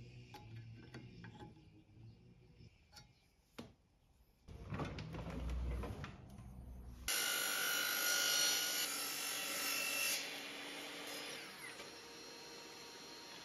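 A few light handling clicks, then an electric power tool starts about seven seconds in and runs loudly, with a steady whine. After about ten seconds it drops to a quieter steady whir.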